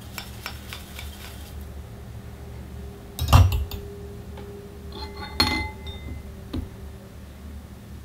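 Hard objects being handled and set down: a few light clicks, then a sharp knock, and about two seconds later a clink with a short ringing tone, followed by a lighter tap. A low steady hum sits underneath.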